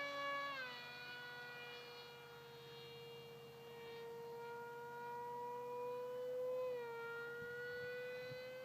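Homemade foam RC speed airplane's motor and propeller whining as it flies overhead. The pitch drops about half a second in, holds steady, then drops again near the end.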